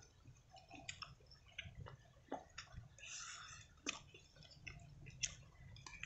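Faint chewing and mouth sounds of people eating rice and chicken gizzards by hand, with scattered small clicks and a short hiss about three seconds in.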